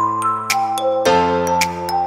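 Background music: a stepping melody over held chords that change about once a second, with light clicking percussion.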